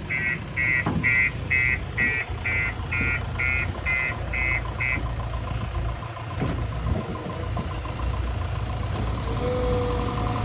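Construction vehicle's reversing alarm beeping about twice a second, stopping about five seconds in, over a heavy engine running steadily.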